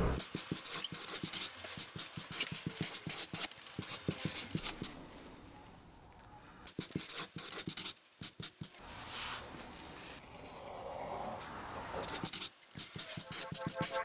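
Pen writing and sketching on paper: quick runs of short scratching strokes, broken by a pause of about two seconds about five seconds in.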